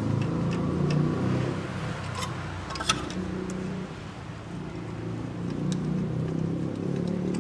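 Small clicks and taps of hands and tools working on the spark plug cables and ignition coil atop the engine, one sharper click about three seconds in, over a steady low hum.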